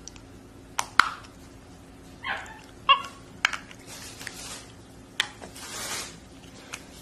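Capuchin monkey mouthing and biting a red plastic toy: a few sharp clicks, two short squeaky calls at about two and three seconds in, and breathy hisses near four and six seconds.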